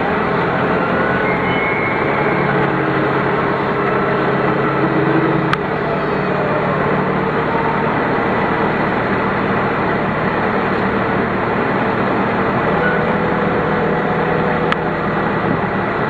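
Concrete mixer truck's diesel engine running steadily as the truck works its mud-bogged rear wheels.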